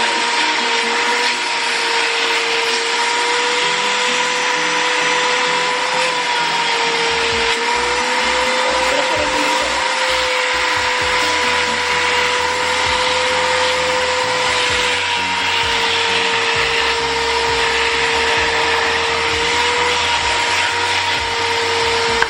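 KYK 1.1 kW wet and dry canister vacuum cleaner motor running steadily with a loud rushing of air and a steady whine. The whine rises slightly in pitch for several seconds around the middle, then settles back.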